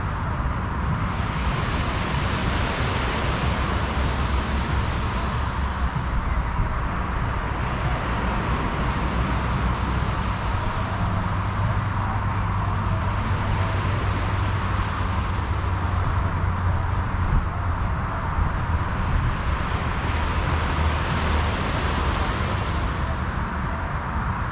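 Surf washing on a beach with steady wind noise; the hiss of the waves swells twice, a couple of seconds in and again near the end.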